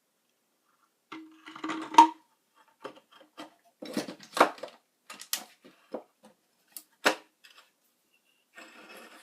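Small hard objects being handled on a work surface: a series of irregular clicks, clinks and short scrapes starting about a second in, the loudest knock about two seconds in, with a brief low hum alongside the first clatter.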